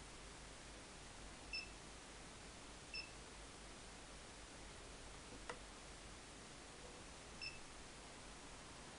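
Short high beeps from an Android car stereo head unit's touchscreen as icons are tapped: three beeps, about a second and a half in, about three seconds in and near the end. A faint click falls midway, over a low steady hiss.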